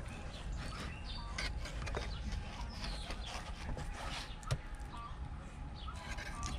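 Fillet knife cutting and scraping along a winter flounder on a plastic utility sink: a scatter of small clicks and scrapes, with birds chirping in the background.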